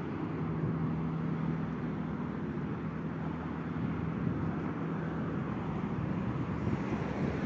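Steady road traffic noise from cars on a multi-lane road, a continuous wash with a low hum and no single passing vehicle standing out.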